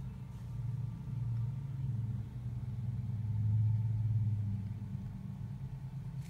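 A low rumble, louder about three to four seconds in, with a faint steady hum above it.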